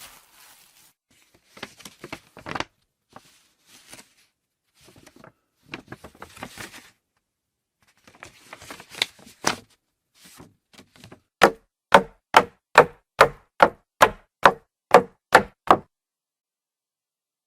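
Scattered small clicks and rustles, then a run of about eleven sharp, evenly spaced knocks, a little over two a second, that stops suddenly.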